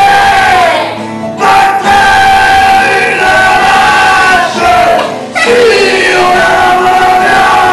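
A group of children singing a song together to an acoustic guitar, in long held phrases with short breaks between them.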